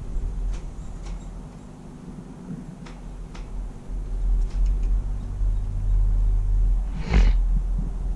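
Ride on an open double chairlift: a steady low rumble of wind on the camera and the moving lift, with a few faint clicks. A louder brief rush of noise comes about seven seconds in.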